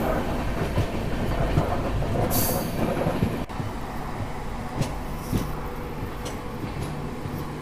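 Passenger express train running along the line: a steady rumble of wheels on the rails with some clatter. A brief hiss comes about two and a half seconds in, and the sound drops slightly in level about halfway through.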